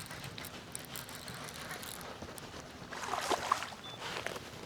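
Light water noise around a small boat, with a short burst of splashing about three seconds in.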